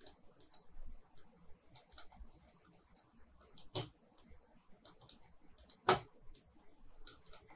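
Irregular clicking of a computer mouse and keyboard at a desk, with two louder clicks about four and six seconds in.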